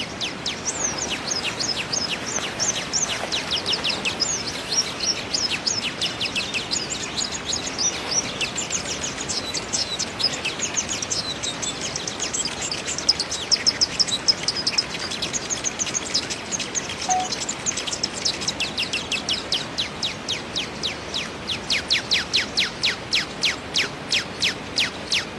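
Small birds chirping: a continuous stream of short, high chirps, each a quick downward sweep, over a steady background hiss. The chirps crowd together in the middle and come about three a second near the end.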